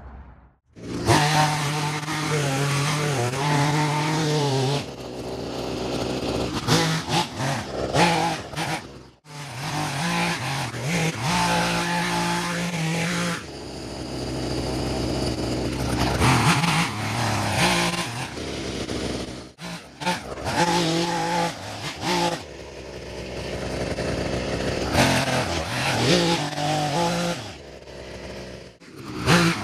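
Small-engine hedge trimmer running and revving up and down in spells as it cuts down daylily foliage, dropping out briefly a few times.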